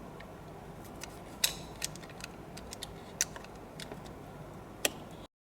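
A mini screwdriver prying up the plastic retaining tabs of a steering-wheel airbag: a handful of small sharp clicks and light metallic taps, the loudest about a second and a half in. The sound cuts off abruptly near the end.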